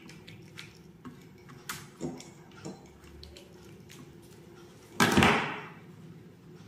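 Red-handled wire strippers working on an insulated black electrical wire: light clicks and small snips with a few louder knocks. About five seconds in comes a sudden, loud noise that dies away within about half a second.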